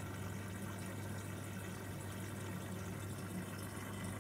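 Water churning steadily around a protein skimmer's pump in a marine aquarium sump, with a constant low electrical hum from a running pump.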